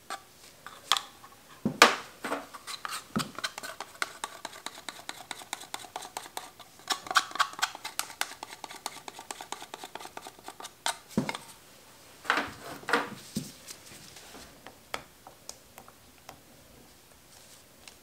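Silicone spatula scraping and tapping against plastic pitchers and a small plastic colorant cup as colorant is stirred into soap batter: many irregular light clicks and scrapes, with a few louder knocks about two seconds in and again around eleven to thirteen seconds in.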